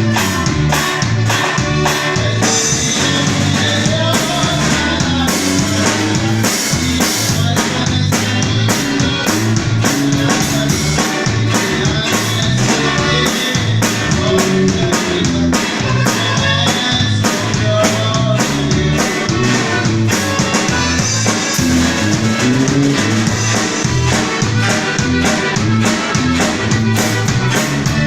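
Loud music with a steady beat of drums and bass.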